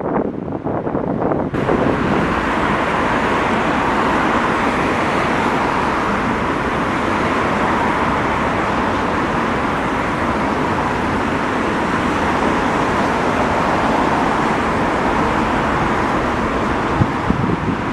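Steady bus engine and traffic noise across a bus station, with a single-decker bus driving closer near the end.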